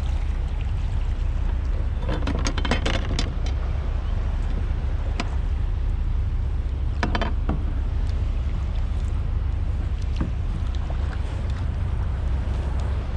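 Steady low rumble of wind and water on an action camera's microphone aboard a sea kayak, with a scattering of short knocks, clustered about two to three seconds in and again around seven seconds.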